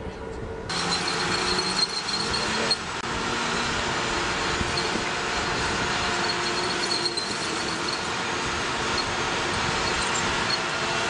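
M1 Abrams tanks driving past, their steel tracks clattering and squealing over the ground under a steady high whine from the gas-turbine engine. The sound jumps louder under a second in.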